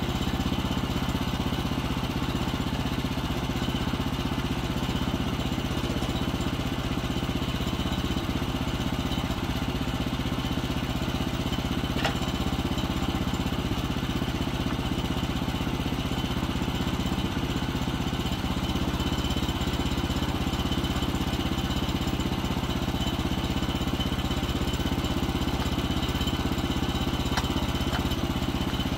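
The sawmill's 14 hp gas engine idling steadily with no cut under way, with a couple of sharp knocks, one about twelve seconds in and another near the end.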